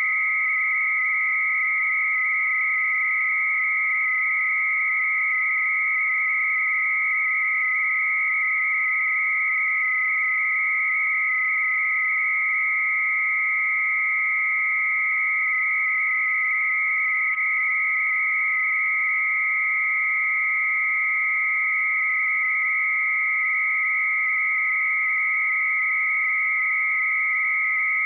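Bell 103 300-baud modem connection with two steady high tones sounding together. The lower one is the calling modem's constant 1270 Hz carrier. The higher, louder one is the answering 56K modem's frequency-shift-keyed data tone, carrying text from the BBS.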